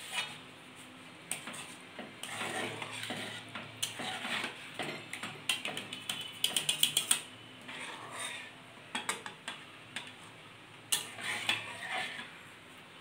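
A flat metal spatula scraping and knocking against a metal kadai as it stirs mustard-chili paste and turmeric in oil. The strokes are irregular, with a quick run of them about six to seven seconds in.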